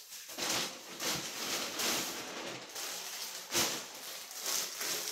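Plastic packaging rustling and crinkling as a mailer bag is rummaged and a bagged item is pulled out, with one sharper knock a little after halfway.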